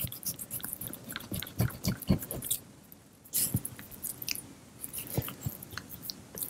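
Chef's knife slicing through a raw pork loin on a wooden cutting board: soft, irregular cutting sounds with a few louder knocks.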